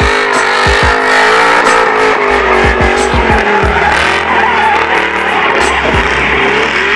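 Ford Transit van with a swapped BMW M60B40 V8 running hard at high revs while drifting in circles, its rear tyres squealing and skidding on tarmac, with the engine note wavering up and down.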